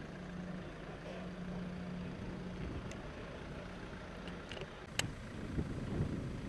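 Steady low hum of an idling engine, with a few sharp clicks, the loudest about five seconds in.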